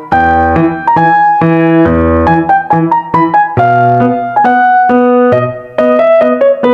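Background piano music: a melody of separate struck notes over lower bass notes.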